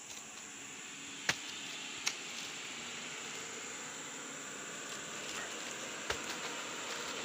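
Insects buzzing steadily in a high, even tone, over a haze of noise that slowly grows louder. Three sharp knocks stand out, about a second in, at two seconds and near six seconds, from oil palm fruit bunches being loaded onto a wooden truck.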